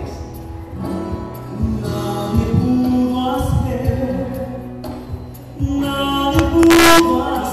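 Gospel worship song: singing over musical accompaniment, amplified through a hall's sound system, with a loud, bright crash about seven seconds in.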